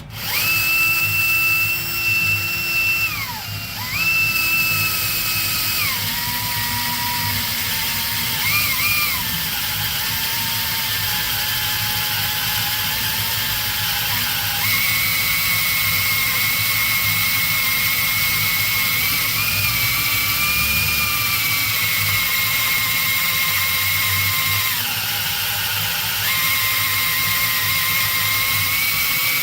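Electric drill running under load, boring into a steel rivet in a truck chassis frame rail. Its motor whine stops briefly about three seconds in, restarts, and sags and recovers in pitch several times as the bit bites into the steel.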